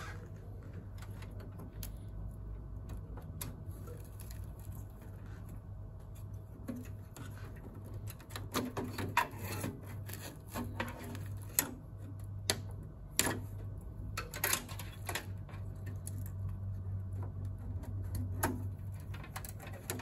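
Hands handling parts inside an open server chassis: scattered clicks, taps and knocks of metal and plastic, sparse at first and more frequent from about eight seconds in, over a steady low hum.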